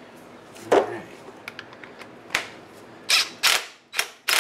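About six sharp clacks and knocks of a metal socket and a cordless impact wrench being handled and fitted onto a wheel's lug nut, most of them close together near the end. The wrench is not running.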